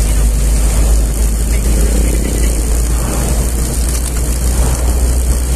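Steady low rumble of a car's engine and tyres on the road, heard from inside the cabin while driving at a constant pace.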